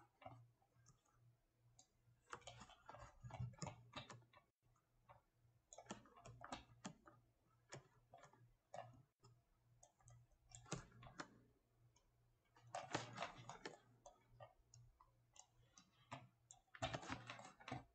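Faint, scattered clicks of a computer mouse and keyboard, coming in short clusters a few seconds apart.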